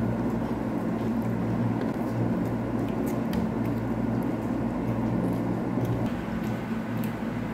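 Steady low mechanical hum of a running room appliance, with a few faint ticks over it.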